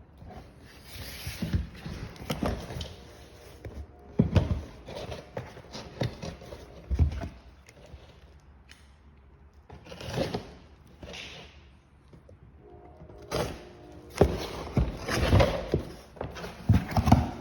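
Irregular knocks, clunks and rustling from handling the parts of a Marantec garage door opener kit.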